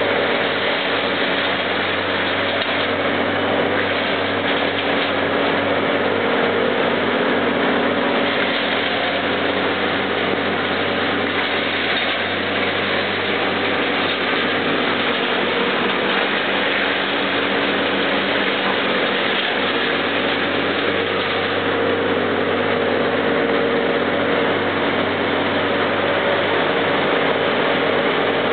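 Landini tractor running steadily under load, driving a woodchipper, with the chipper's dense rushing noise over the engine's drone.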